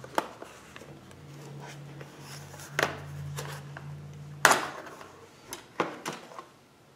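Plastic knocks and clicks as the auto-darkening filter panel is pushed out of a welding helmet's plastic shell and the helmet is handled: a handful of sharp knocks, the loudest about four and a half seconds in. A low steady hum runs through the middle few seconds.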